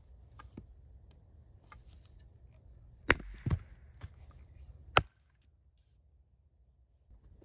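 Hatchet striking wood on a stump chopping block: three sharp chops, two about half a second apart around three seconds in and a third about five seconds in, the last leaving the hatchet stuck in the block. A few faint knocks of wood being handled come before them.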